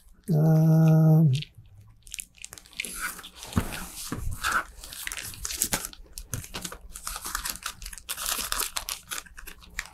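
A man's short held vocal hum about half a second in. Then a thin plastic parts bag crinkles and crackles in many small bursts as it is opened and the balsa fin sheet inside is handled.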